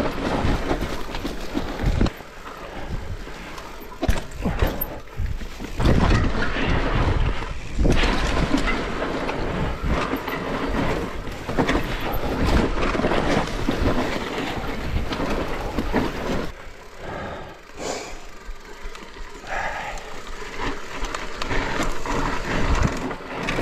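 Mountain bike rolling fast down a dirt trail: tyre noise with the bike rattling and knocking over bumps. It eases off in two quieter stretches, about two seconds in and again after about sixteen seconds.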